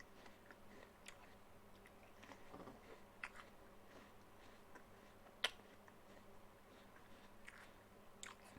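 Faint chewing and crunching of a raw apple, with one sharper crunch a little past halfway.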